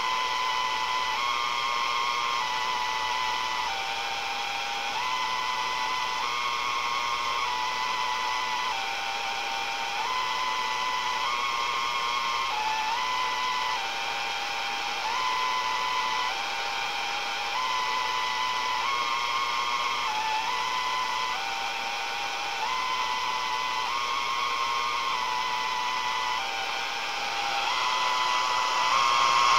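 Radio receiver's speaker playing a string of electronic tones that step between a few pitches about once a second, over a steady hiss and a faint constant higher tone.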